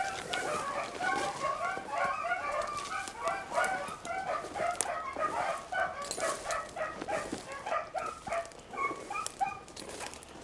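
A pack of beagles baying on a rabbit's track: several hound voices overlapping in a steady stream of short calls.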